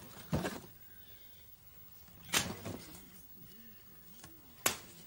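Objects being handled and knocked about in a cardboard box: three sharp knocks, about two seconds apart, with faint rustling between.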